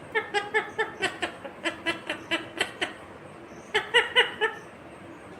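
Indian ringneck parakeet giving a rapid run of short, chattering calls, about a dozen in under three seconds. A shorter burst of calls follows near the four-second mark.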